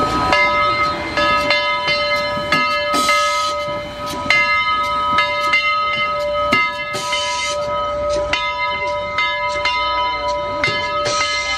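Locomotive bell ringing steadily, about two strikes a second, with three short bursts of hiss.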